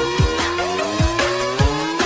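Electronic background music: a fast, deep kick-drum beat, each hit dropping in pitch, under sliding synth notes.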